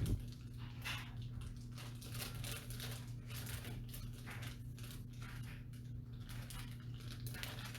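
Faint, irregular rustling and light knocks of packaging and parts being handled, over a steady low electrical hum.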